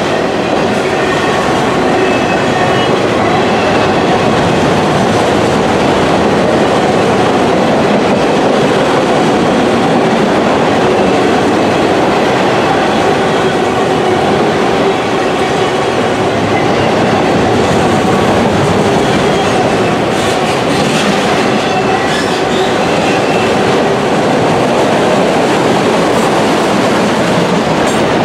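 Freight train of autorack cars rolling past at close range: a steady rumble and clatter of steel wheels on rail, with a few sharper clicks about twenty seconds in.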